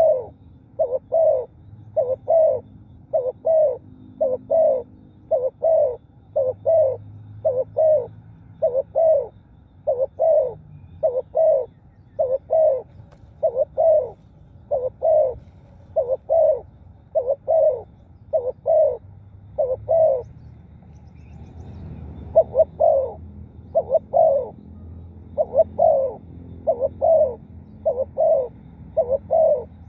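Spotted dove cooing: a steady series of short, low coos, mostly in pairs about a second apart, with a pause of a couple of seconds a little past two-thirds of the way through.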